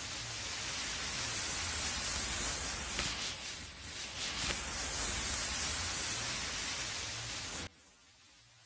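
Mass of match heads flaring together, giving a loud, steady hiss that cuts off suddenly near the end.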